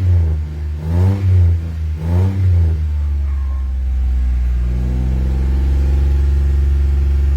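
Mitsubishi Mirage engine running after a no-start, revved in three quick throttle blips in the first three seconds, then settling to a steady idle. The car has just been brought back to life; its spark plugs are worn with too wide a gap, and the mechanic says the cylinders were flooded from repeated cranking.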